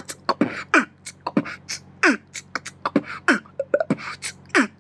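Electronic outro beat: quick clicks and high ticks in a rhythm, with a falling zap-like sweep every second or so over a steady low hum.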